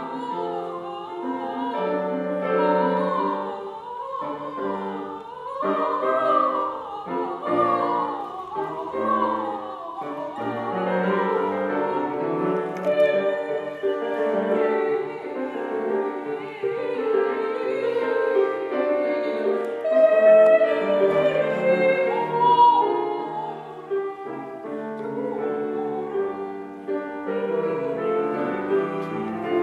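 Female classical singer singing in operatic style with a wide vibrato, accompanied by a grand piano.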